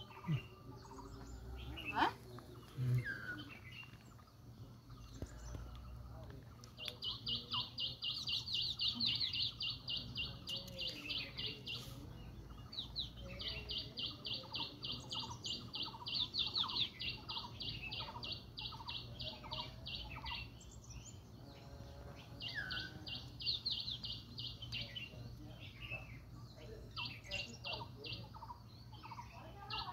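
Bird calls: long runs of fast, evenly repeated high notes, about seven a second, starting about seven seconds in and coming back in several bouts, with softer lower chirps in between.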